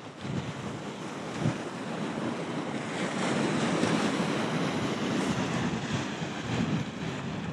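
Ocean surf breaking, a wave's rush building to its loudest midway and easing off toward the end, with wind buffeting the microphone.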